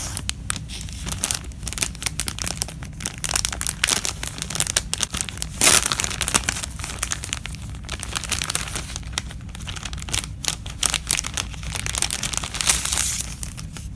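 Clear plastic packaging bag crinkling and crackling in irregular bursts as hands open it and slide out doll shorts on a plastic hanger. The loudest crackle comes a little before halfway, with another busy stretch near the end.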